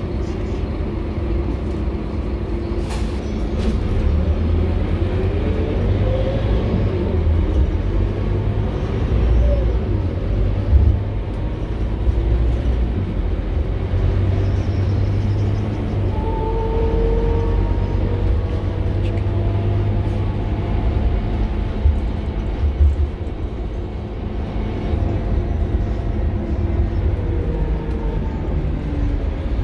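Scania K230UB city bus heard from inside the passenger saloon while on the move: a steady, loud low engine and drivetrain rumble. Short rising whines come through twice between about the sixth and tenth seconds, and some held whining tones come through about halfway through.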